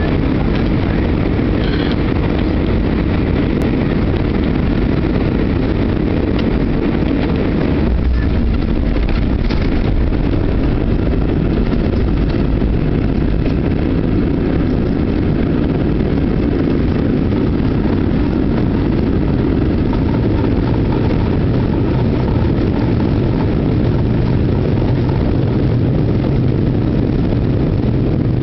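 Jet airliner cabin noise during landing rollout: the wing-mounted turbofan engines and the rush of air and wheels on the runway, a loud, steady low rumble, with a brief deeper surge about eight seconds in.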